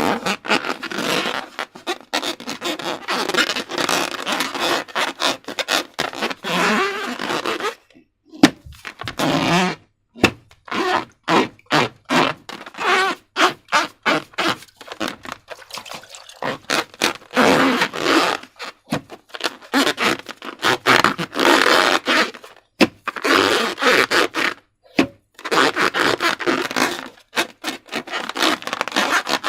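Slime being squished, stretched and worked by hand, giving wet squelches and sticky crackling pops in irregular bouts with a few short pauses.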